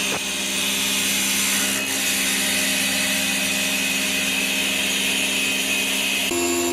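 CNC wood lathe running, its cutting tool shaving a spinning wooden workpiece: a steady machine hum under a hissing cut. The sound shifts about six seconds in.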